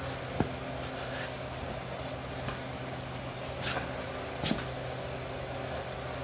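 Metal clicks and a clunk from a table saw stand's foot-pedal lifting wheel mechanism being worked, over a steady low hum. There is a sharp click about half a second in, a short scrape past the middle, and a click with a thump soon after.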